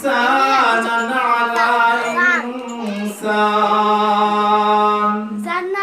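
A man chanting Arabic in a drawn-out, sung style: a wavering, ornamented phrase, then one long held note of about two seconds near the end.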